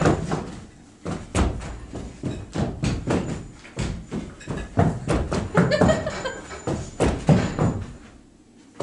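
Running and stamping footsteps on a stage floor: a quick, uneven run of heavy thuds, with a brief vocal cry about six seconds in, stopping shortly before the end.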